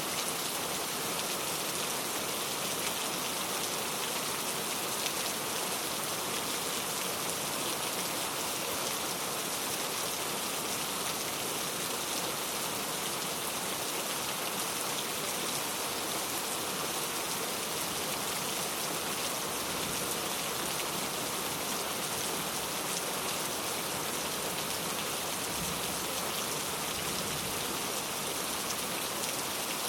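Steady rain falling, drops pattering evenly on a surface without let-up.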